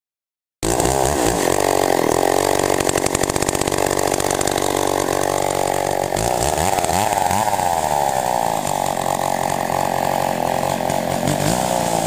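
Chainsaw running after a brief silence, cutting in abruptly; its engine pitch rises and falls a few times around the middle.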